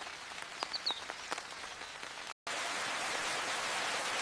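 Rain falling, first as a light hiss with separate drops striking close by and a brief high chirp under a second in; after a short dropout about two seconds in, a louder, steady downpour hiss takes over.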